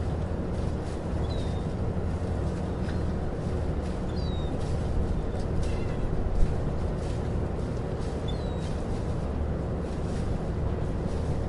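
Harbor ambience: a boat engine's steady low rumble, with short high bird chirps a few times and one sharp knock about six seconds in.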